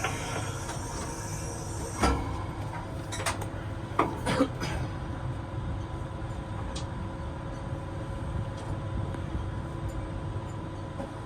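Tower crane's slewing drive running as the crane swings, heard from the operator's cab as a steady mechanical hum with a few steady tones. A few sharp clicks or knocks come about two and four seconds in.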